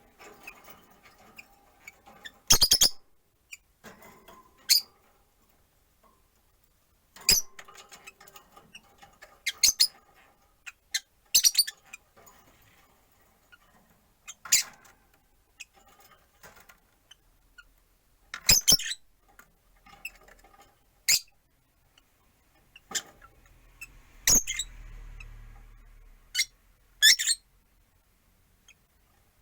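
Rosy-faced lovebirds calling: about a dozen short, shrill chirps scattered through, with softer chatter between them. A faint low rumble comes in a little past two-thirds of the way through.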